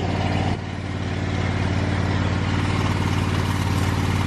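An engine running steadily at an even idle, stopping abruptly near the end.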